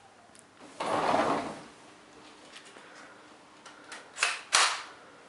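A sliding glass patio door rolling along its track for about a second, about a second in. Near the end come two short, sharp handling noises half a second apart.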